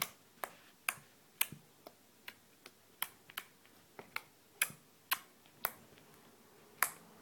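Fingertips poking white slime in a clear plastic bowl, each poke making a sharp little pop or click, about two a second, with a short pause near the end.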